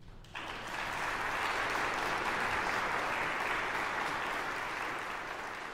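Audience applauding after an organ piece, starting suddenly a moment in and then holding steady.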